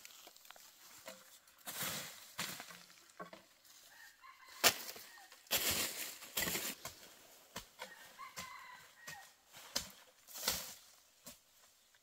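Rustling and scuffing in dry bamboo leaves as bamboo shoots are dropped into a woven basket and someone steps about, in several short bursts. A few faint short clucking calls of a fowl come in now and then.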